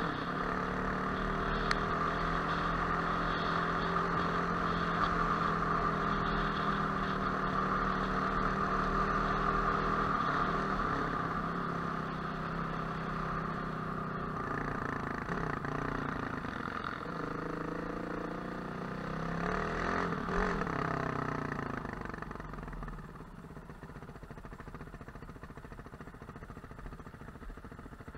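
Off-road motorcycle engine running at low trail speed, its note mostly steady, rising and falling with the throttle about two-thirds of the way through, then quieter near the end.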